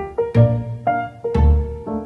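Background music: light plucked-string and piano tune with a bass note on each beat, about one beat a second.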